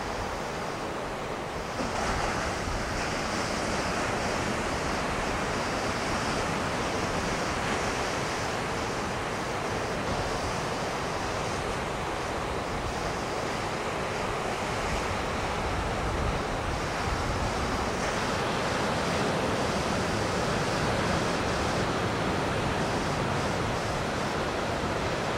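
Ocean surf breaking and washing steadily, with wind buffeting the microphone; the noise grows louder about two seconds in.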